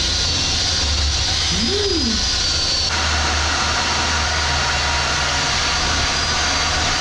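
Angle grinder running steadily under load, grinding old surface off a fibreglass boat deck, with a high steady whine. The character of the grinding changes abruptly about three seconds in.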